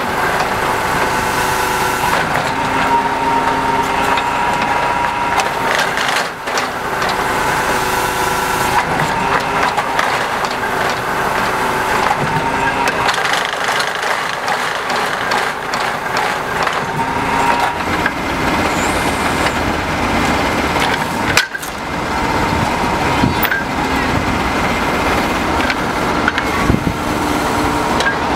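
Truck-mounted core drilling rig running while drilling, its engine and drill drive making a loud, steady mechanical din with a few wavering whining tones. A few sharp knocks and clanks from the rig, the clearest about 21 seconds in.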